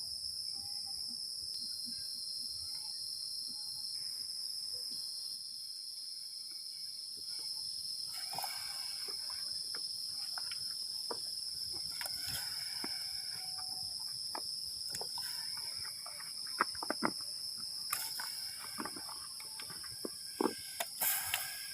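Steady high-pitched chorus of forest insects, a continuous shrill buzz. Scattered sharp clicks and knocks join in over the last few seconds.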